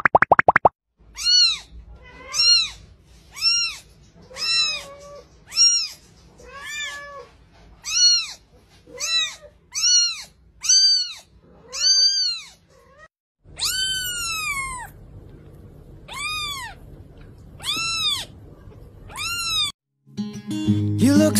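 Young kitten meowing over and over, about one high meow a second, each rising and then falling in pitch, with one longer meow about two-thirds of the way through.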